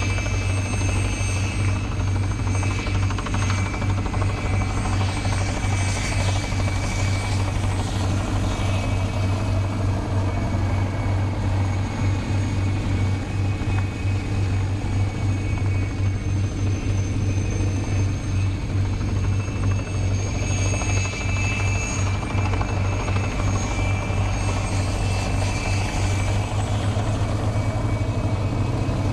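Piston aircraft engine and propeller running steadily at low power: a constant low drone that does not change.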